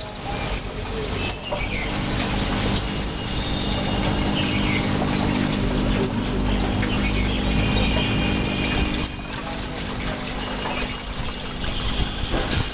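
Water gushing and splashing into a tank from a pipe, over a steady low hum that eases off after about nine seconds. A few short high chirps sound now and then.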